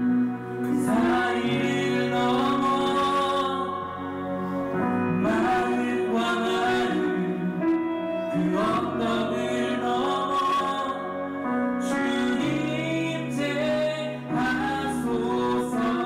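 Worship song sung live by a male and a female vocalist into handheld microphones, over a sustained instrumental backing of long held chords.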